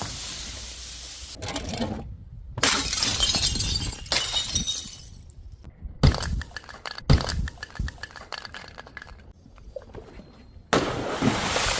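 Glass bottles breaking in a string of separate crashes, each one shattering followed by the clink of falling shards. The longest crash comes about two and a half seconds in, and a loud one near the end.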